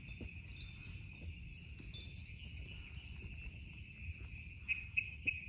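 Night insects chirring in a steady high-pitched drone, over a low rumble, with a few short knocks near the end.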